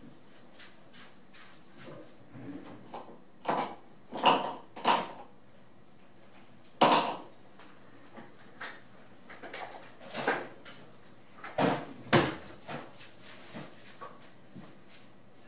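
Scattered knocks and clatter of things being handled and set down, about a dozen at irregular gaps, the loudest about seven seconds in. No air horn sounds.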